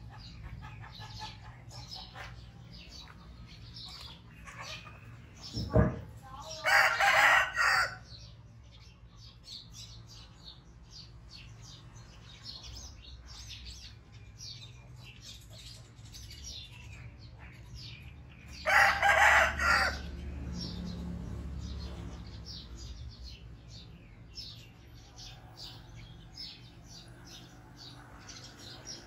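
A rooster crowing twice, about twelve seconds apart, over faint chirping of small birds. A short thump comes just before the first crow.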